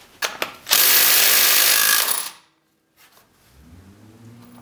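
Cordless power driver running in one burst of about a second and a half, backing out a bolt on the primary clutch of a Can-Am Outlander 500's CVT, then stopping sharply.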